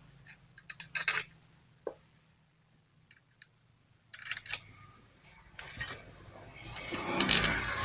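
Small metal clicks and clinks of bolts and hand tools being handled as bolts are fitted into a motorcycle engine's magneto cover, with a longer stretch of rattling near the end.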